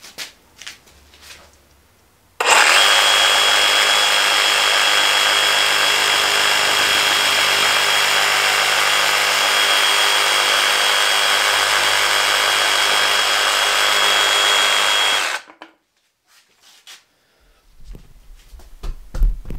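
20-volt DeWalt DCS382 XR cordless reciprocating saw running as it cuts through a cardboard carpet tube, with a steady high whine over the blade noise. It starts suddenly about two seconds in, runs for about thirteen seconds and cuts off abruptly, followed by a few low thumps near the end.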